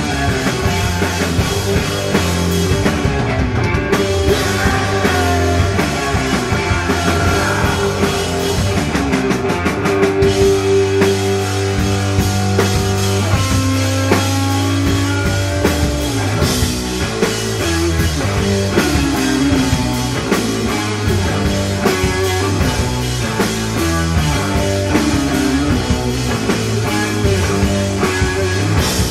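Stoner rock band playing live: electric guitar, bass and drum kit, loud and continuous.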